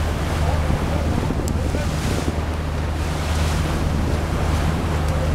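Boat engine running with a steady low hum, under wind buffeting the microphone and the wash of the sea.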